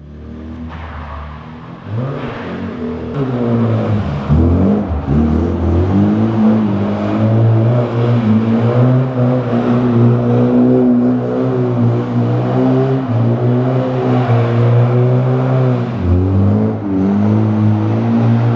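Classic Lada Zhiguli drift car's engine revving hard while the car slides on wet asphalt. The revs dip and climb several times in the first few seconds, hold high for long stretches, and drop briefly about three-quarters of the way through before rising again.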